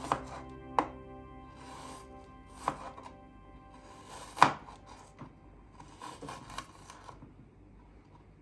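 A knife chopping onto a cutting board in a handful of sharp, irregular knocks, the loudest about four and a half seconds in, over soft background music that fades out midway.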